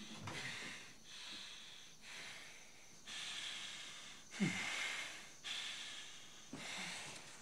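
A man breathing heavily and laboriously, about seven loud hissing breaths roughly a second apart, with a low falling groan about halfway through: breathlessness with a tight chest.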